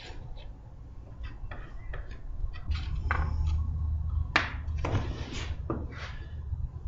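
Cut wooden blocks knocking and clattering as they are handled and set down on a workbench, with the sharpest knock about four and a half seconds in. A low steady hum runs underneath.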